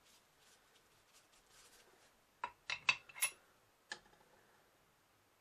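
Fired .243 brass cartridge cases clicking and clinking as they are handled, set into a plastic loading block and onto a digital scale's pan: five or so sharp taps between about two and a half and four seconds in. Before them, faint scratching of a pen writing on paper.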